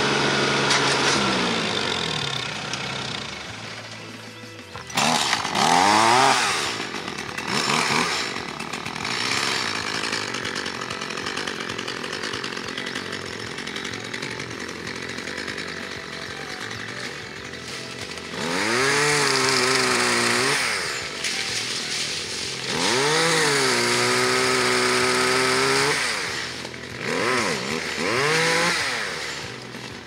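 An engine winds down over the first few seconds, then a chainsaw starts up about five seconds in, blips its throttle a couple of times and idles. It then revs up to full speed three times in longer pulls, cutting through dead brush and limbs.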